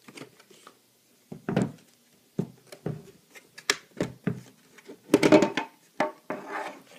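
Hard plastic clicks and knocks from handling a Humminbird fish finder and its snap-on plastic cover as the unit is taken out, irregular taps with a busier clatter about five seconds in.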